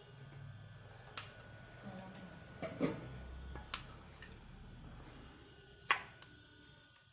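A steel serving spoon clinking and scraping against a stainless steel bowl as curry is ladled out, a few sharp clinks spread over several seconds, over a low steady hum.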